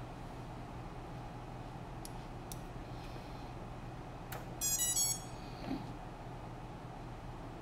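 A few mouse clicks, then about four and a half seconds in a short, quick run of electronic beeps at several pitches, over a steady low hum.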